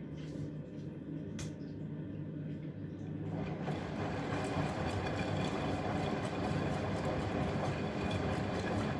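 Bosch Maxx WFL 248Y front-loading washing machine running, a steady hum and rumble from its motor and turning drum, growing fuller and slightly louder about three and a half seconds in.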